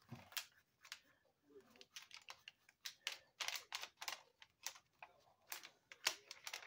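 Plastic burnishing tool rubbed in short, irregular strokes over glossy sticker paper, pressing it down onto a clock face a little at a time to keep out air bubbles, with light rustling of the peeled-back paper backing. The strokes are faint and scratchy.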